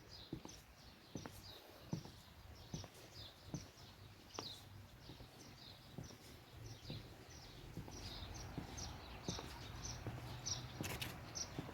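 Small birds chirping over and over, quick short falling chirps several times a second, against a faint outdoor background. A low steady hum comes up in the second half.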